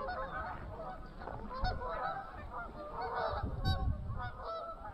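A group of geese honking, many short calls overlapping one another.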